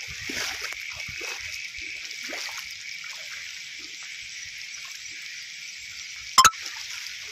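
Steady rain falling on standing floodwater, an even hiss, with one sharp click about six seconds in, the loudest sound.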